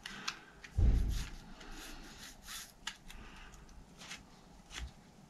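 Steel gear cable being threaded through a Shimano Revoshift twist-grip shifter by hand: faint rubbing and small scattered clicks of the cable and plastic housing, with one dull thump about a second in.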